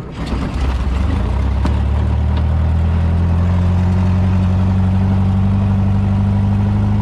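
Racing dune buggy engine starting: it catches and builds up within about the first second, then settles into a steady idle.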